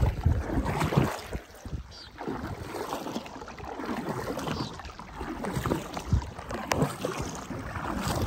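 Kayak paddle strokes dipping and splashing in the water in repeated surges, with wind noise on the microphone.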